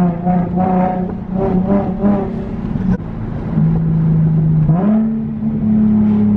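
Nissan 370Z engine and exhaust droning inside the cabin while driving; the exhaust has a leak. The steady drone steps up in pitch about five seconds in as the revs rise, then holds.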